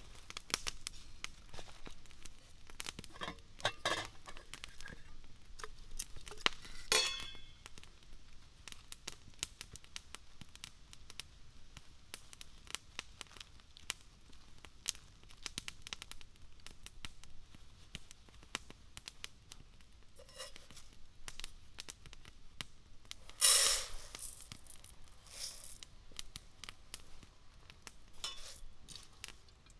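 Camp cookware and gear handled by hand: scattered clinks of a metal lid and aluminium pot, including one ringing clink, and a cloth bag rustling as it is untied. About two-thirds of the way through comes a brief, loud rush of dry buckwheat grains poured into the aluminium pot.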